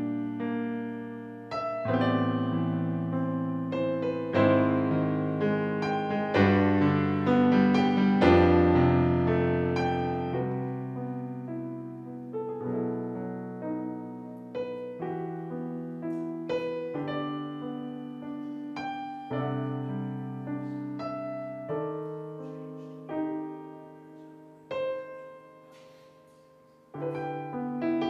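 Solo piano played slowly in full, sustained chords with deep bass notes, each chord struck and left to fade. It swells about a third of the way through, dies down almost to nothing near the end, then comes back in with a fresh chord.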